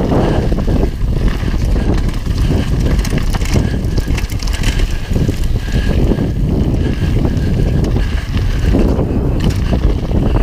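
Wind buffeting a helmet-mounted camera's microphone as a mountain bike rolls down a gravel trail, with tyre noise on the gravel and scattered clicks and rattles from the bike.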